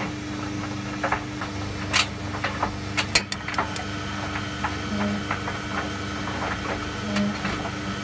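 White Knight Eco43A gas tumble dryer running, a steady motor and drum hum with irregular clicks and knocks as the drum turns, sharpest in the first half. A faint steady whine joins about halfway through.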